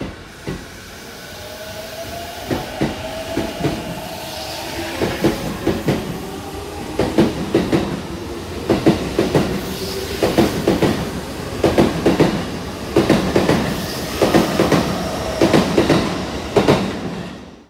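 JR East E233 series electric train pulling away from a platform. The inverter-driven traction motors whine, rising in pitch as it accelerates, and the wheels clack over rail joints in quick pairs that come faster and faster.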